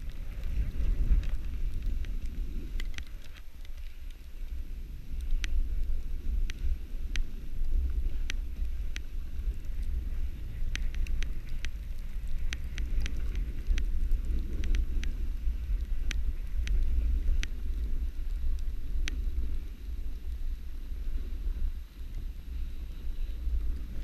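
Wind buffeting a GoPro microphone during a snowboard run: a heavy, steady low rumble with the hiss of the board sliding over snow, and scattered sharp ticks throughout.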